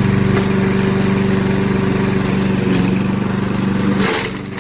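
Mountfield SP41 mower's 123cc ST120 petrol engine running steadily, then cutting out about four seconds in and winding down.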